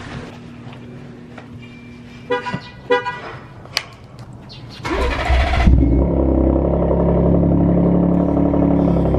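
Two short horn chirps from a Ford F-150 Raptor pickup, then its twin-turbo V6 engine starts about five seconds in and settles into a steady idle.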